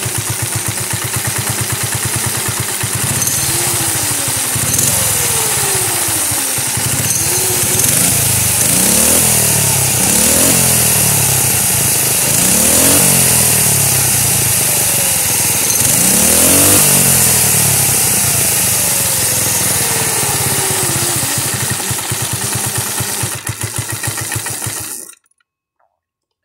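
Phatmoto motorized bicycle's small single-cylinder four-stroke engine, breathing through an AR Sports flared trumpet exhaust with a home-made baffle, running with a throaty note and revved up several times, each rev rising and then falling back to idle. The sound stops abruptly near the end.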